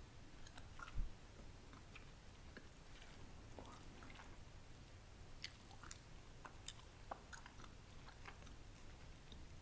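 Close-miked chewing of a baked egg wrap: soft, crunchy mouth sounds with scattered small clicks, and a low thump about a second in.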